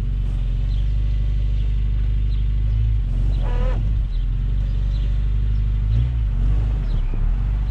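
Honda Civic Si's K24A four-cylinder engine idling steadily while it warms up after a hard cold start in sub-freezing cold.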